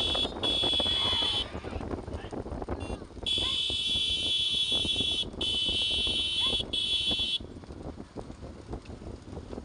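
A shrill, buzzer-like tone sounding in blasts, two in the first second and a half, then three long ones from about three to seven and a half seconds in. Under it runs the noise of the bullock cart and the motorbikes riding behind it.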